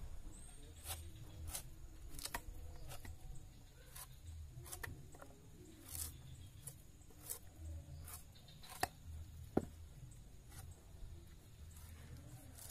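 Machete blade scraping and cutting leftover roots off a banana corm, in quiet, irregular strokes with sharp clicks about once a second.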